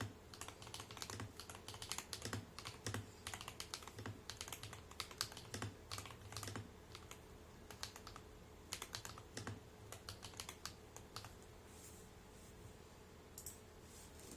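Typing on a 75% mechanical keyboard with Bumpy Panda tactile switches and PBT dye-sub keycaps: quick, irregular keystrokes. The typing thins out after about eleven seconds, leaving only a few scattered keystrokes near the end.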